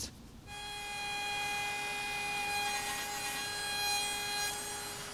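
Electric woodworking power tool starting about half a second in and running with a steady whine. A rougher rasping layer over the middle is the tool cutting or sanding into the wood.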